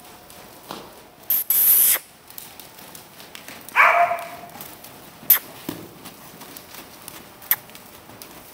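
Weanling quarter horse colts moving loose in an indoor arena: a loud blowing noise about a second and a half in, a short call about four seconds in, and a few sharp knocks later.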